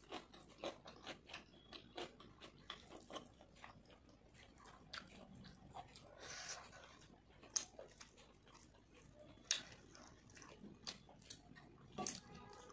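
Faint, close chewing of fried rice eaten by hand: a quick run of wet mouth clicks and lip smacks, with a few sharper clicks in the second half.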